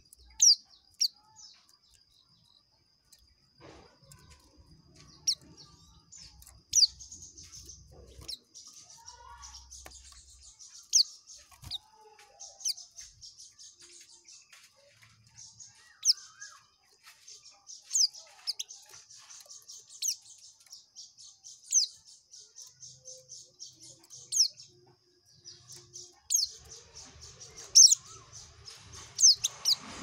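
A white-eye (pleci) singing 'ngekek': a long, nearly unbroken high trill, cut by loud, sharp descending notes every second or two, with a brief pause about 25 seconds in.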